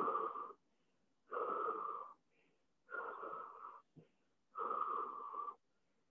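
A man's heavy, wheezy breathing while folded in a plow pose, legs over his head: four noisy breaths about every one and a half seconds, each lasting just under a second. A faint tap about four seconds in.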